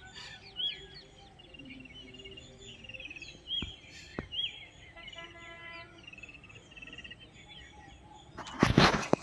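Several small birds chirping and twittering in quick, repeated short calls, with a brief trill about halfway through. Two sharp clicks come around the middle, and a loud rustling burst near the end, like handling or wind on the microphone.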